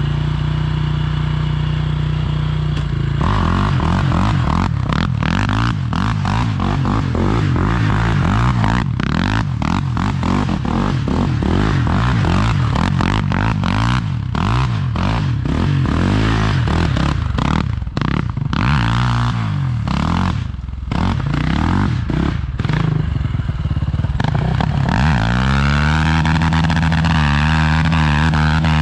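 KTM 525 XC quad's single-cylinder four-stroke engine idling steadily for about three seconds, then revved up and down over and over as the quad is ridden in sliding turns on sand, settling into a steadier, held engine note near the end.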